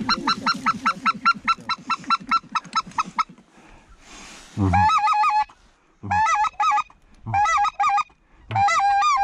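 Goose call blown in quick succession: a fast, even run of short clucks for about three seconds, then four long honks about a second apart, each breaking from a low note up to a high one, calling in passing geese.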